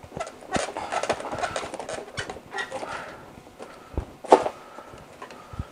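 Irregular clicks, knocks and scraping from a ceiling light fixture's cover being worked loose by hand, sliding and knocking against the fixture's frame. A sharp knock a little past four seconds in is the loudest sound.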